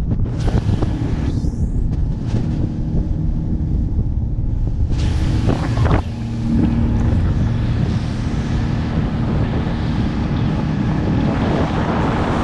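Rigid inflatable boat running at speed: wind buffeting the microphone over the steady hum of its outboard motor and the rush of water along the hull.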